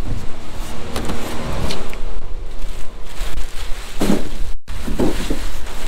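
Clear plastic overflow bag crinkling and styrofoam blocks rubbing and squeaking as they are pushed into the bag, in irregular bursts over a steady low hum.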